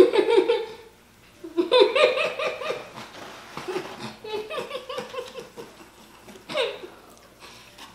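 People laughing in about four bursts, the loudest right at the start and around two seconds in, with a shorter burst near the end.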